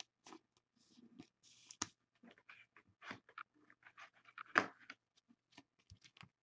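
Faint, irregular rustles and light clicks of a trading card being handled and slid into a clear plastic penny sleeve, with one sharper rustle a little past halfway.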